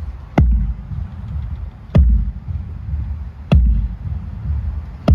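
Bass drum struck at an even, slow pulse during a sound check: four deep booms about a second and a half apart, each with a sharp attack that drops quickly into a low ring.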